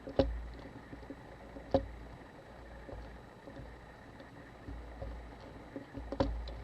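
Three sharp taps or knocks, two near the start about a second and a half apart and one near the end, with faint scuffing between: small tools and camera parts being handled and set down on a workbench.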